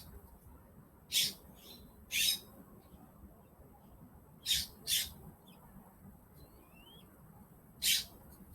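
Birds calling: five short, harsh, high calls spread over several seconds, two of them close together in the middle, with a faint rising whistle shortly before the last call.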